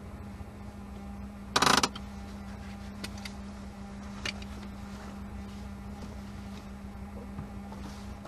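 Opel Kadett C 2.0 E's fuel-injected four-cylinder engine idling at a standstill, a steady low hum and rumble. A loud clunk comes about a second and a half in, followed by a few lighter clicks.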